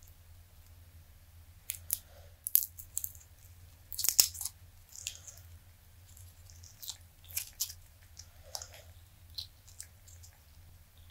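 Silicone dice molds being flexed and peeled away from cured resin dice: scattered sharp crackling clicks and snaps, the loudest cluster about four seconds in.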